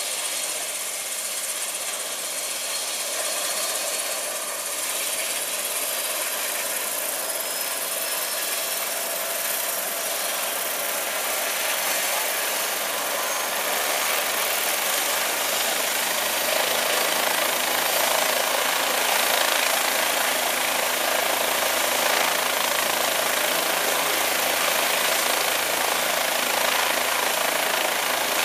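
Medical helicopter's turbine engine and rotors running on the ground, a steady noise with a faint high whine that grows louder from about halfway through as it powers up for takeoff.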